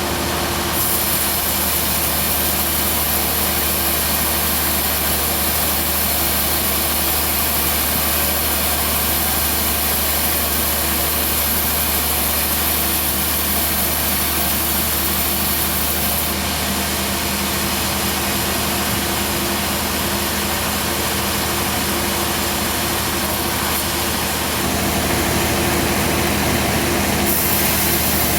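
Band sawmill running steadily with a deep engine hum. A high hiss sets in about a second in, drops out about halfway through and returns briefly near the end.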